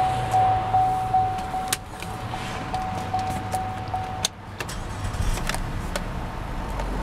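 Chevrolet Impala's warning chime pinging about two and a half times a second, stopping about four seconds in. Several clicks follow as the key is turned, and the engine starts and runs low near the end.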